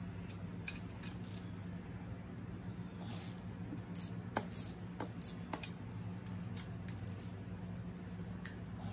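A hand wrench clinking on a crankcase nut of a VW Beetle engine as the nut is loosened, with scattered metallic clicks about every half second to second, over a steady low hum.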